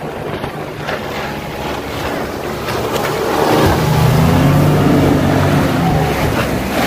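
Outboard speedboat passing close by: its engine grows loud about three and a half seconds in, peaks, then eases off as it pulls away. Over the constant hiss of churning wake and spray.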